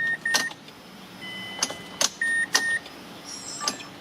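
Mazda CX-7 dashboard chime beeping in short pairs, with a few sharp clicks between, as the ignition is switched on. No engine cranking follows: the car has a no-crank, no-start fault.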